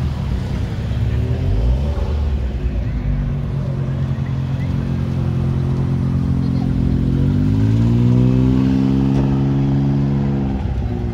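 Small turbocharged three-cylinder engines of Suzuki Cappuccino kei roadsters running as the cars creep past at low speed. About seven seconds in, one engine revs up, holds the higher pitch for about three seconds and drops back near the end.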